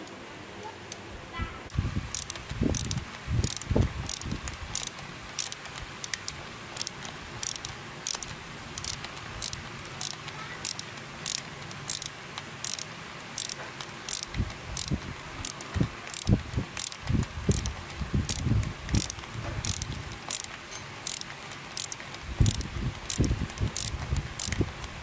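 Small hand tool knocking and scraping against a Ryobi trimmer engine's recoil starter housing as its screws are worked loose. A steady high-pitched ticking runs behind it, about twice a second, starting about two seconds in.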